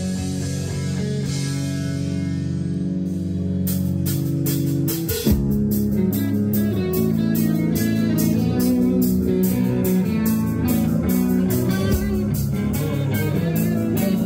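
Live rock band playing: guitar chords held at first, then the drum kit comes in about four seconds in with a steady cymbal beat and a hit a little later, guitar and bass carrying on.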